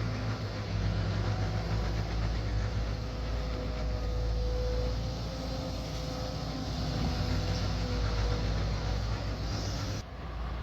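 Heavy diesel engine of earthmoving machinery running steadily under load, with a faint steady whine over it. The sound drops suddenly near the end.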